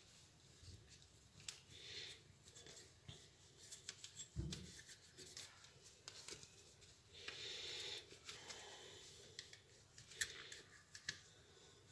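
Faint rubbing of a soft cloth over a wet spinning reel, with scattered small clicks and taps as the reel is turned in the hand. A dull thump about four seconds in, and a longer stretch of rubbing about seven seconds in.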